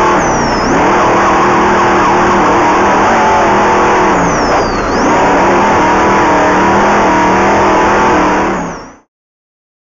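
Off-road race vehicle's engine running hard at high, fairly steady revs, with two brief drops in pitch, about half a second in and about four and a half seconds in. The sound cuts off abruptly about a second before the end.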